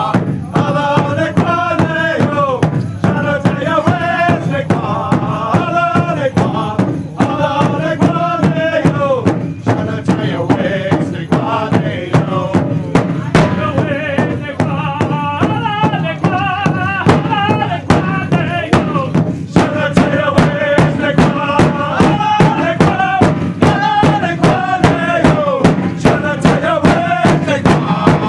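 Powwow drum group: men singing a chant together over a steady beat struck on a large drum, about two to three strokes a second.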